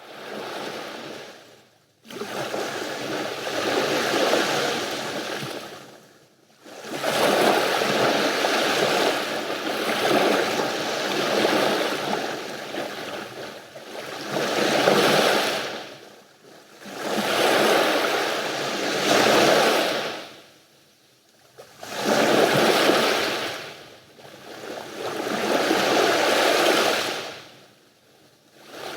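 Mediterranean sea waves breaking and washing onto the shore. They come in surges every few seconds, each swelling and fading, with brief quiet lulls between.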